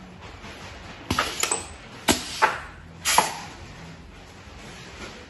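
Pneumatic stretcher bar assembly machine working: about five sharp clunks in two seconds, starting about a second in, some followed by a short hiss of air, as its clamps work and the wooden stretcher bars knock against the frame.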